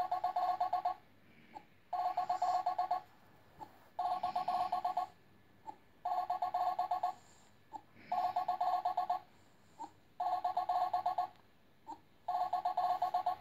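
Electronic telephone-style ringing: a warbling two-tone ring about a second long, repeating every two seconds, with a short blip between rings.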